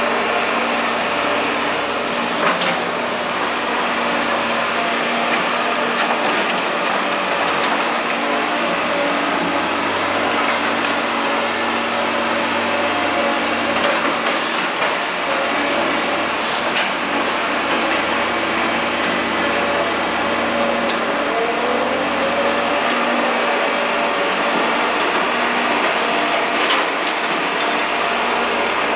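Caterpillar E240B hydraulic excavator's diesel engine running steadily while digging, with a few brief clanks and a short rise and fall in engine pitch about three quarters of the way through.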